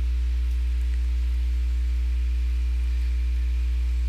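Steady low electrical mains hum with a faint hiss and no other sound: interference picked up by the recording microphone.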